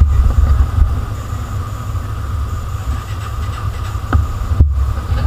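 Motorcycle on the move, its engine and road noise buried under a heavy, steady wind rumble on the microphone.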